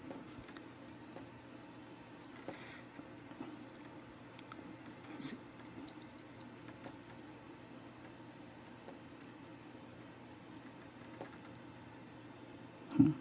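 Sparse light clicks and taps of small metal medal parts being handled and screwed together, with one dull thump near the end.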